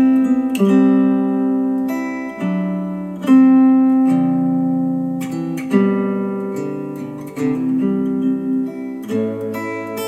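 Acoustic guitar music, chords changing about once a second with no singing, played back through ELAC Debut Reference DBR-62 bookshelf speakers driven by a Rotel A12 integrated amplifier.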